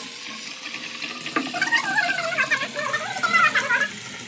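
Water running and splashing as basmati rice is rinsed in a steel bowl, the rinse water being poured off to wash away dust; the splashing grows louder about a second and a half in.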